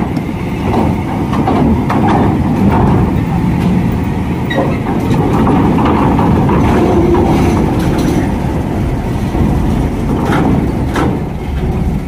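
Heavy diesel truck with a loaded lowboy trailer running under load as it drives over the steel deck grating onto a ferry ramp, a steady low rumble with a few knocks and clanks from the rig and the ramp plates.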